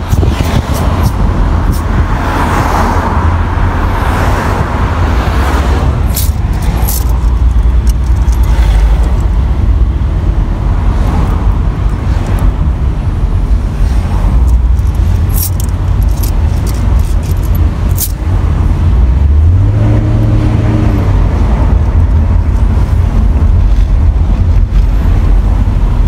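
Car interior noise while driving in town traffic: a steady low rumble of engine and road. Near the end, the engine note rises briefly and holds as the car pulls away, with a few light clicks and rattles scattered through.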